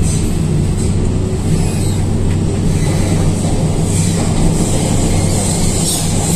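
MTR K-train electric multiple unit running into the tunnel just after leaving a station, heard from inside the car: a steady low rumble and hum of wheels on rail and the train's running gear.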